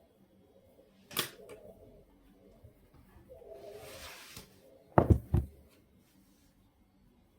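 Desk handling noises: a sharp click, a short rustling hiss, then two heavy thumps about half a second apart, which are the loudest sounds.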